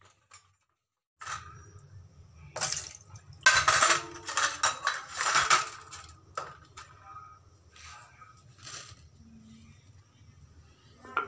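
Steel and brass utensils handled on a steel plate: clattering and scraping, loudest for a few seconds in the middle, then a few separate light clinks, over a low steady hum.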